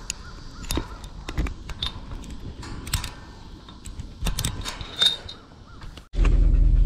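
Irregular clicks and knocks from a handheld camera being carried and handled outdoors. About six seconds in, the sound cuts suddenly to a loud, steady low hum.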